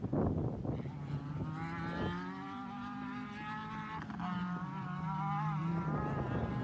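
Off-road race buggy's engine running hard as it drives across the course: a steady engine note that climbs briefly about five seconds in and then drops back.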